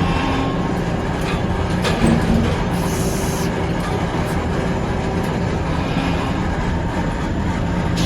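Sawmill machinery running steadily as a red oak log is milled, with a brief louder knock about two seconds in.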